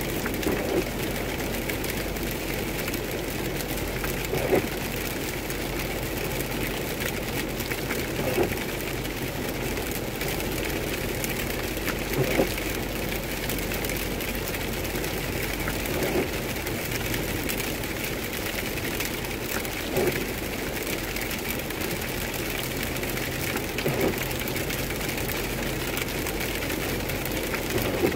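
Steady road and rain noise heard inside a car's cabin driving on a wet highway, with the windshield wipers sweeping about once every four seconds.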